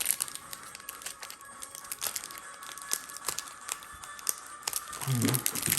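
Crinkling and tearing of a foil trading-card booster-pack wrapper, in scattered small crackles, over faint steady background music.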